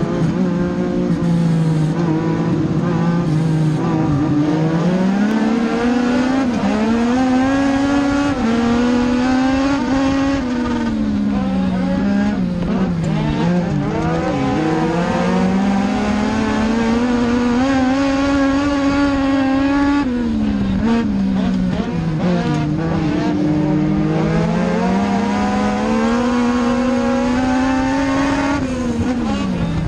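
Legends race car's Yamaha motorcycle four-cylinder engine heard from inside the cockpit under racing load on a dirt oval, the engine note rising on each straight and falling as the driver lifts for the corners, about every five seconds. Other cars' engines run close by underneath it.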